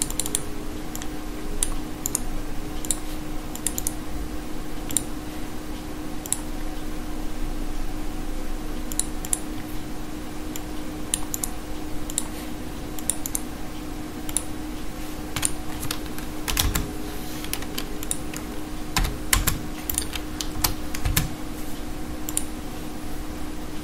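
Computer keyboard keystrokes, irregular and in small scattered bursts, over a steady low hum.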